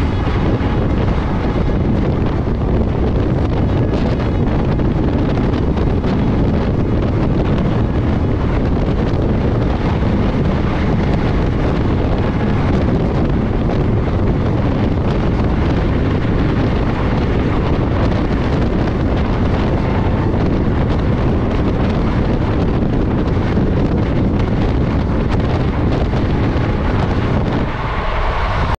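Passenger train running at high speed, heard from the coach door: steady wind buffeting the microphone over the noise of the wheels on the rails.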